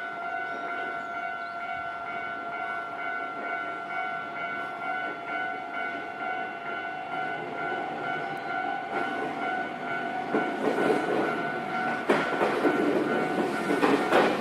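Japanese level-crossing alarm ringing steadily, with a Nankai electric train approaching and passing, its wheels clattering over the rail joints and growing louder from about ten seconds in.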